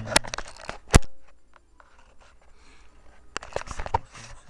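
Handling noise from a handheld camera being moved and gripped: a few clicks, a loud sharp knock about a second in, then rubbing and a cluster of knocks near the end.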